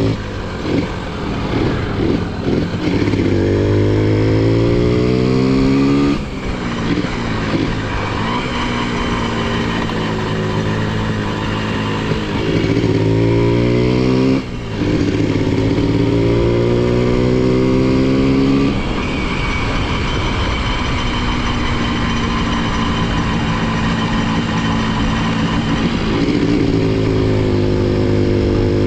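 Honda CDI-100 single-cylinder four-stroke motorcycle engine and exhaust running. The revs climb several times and drop back sharply, with long steady stretches in between.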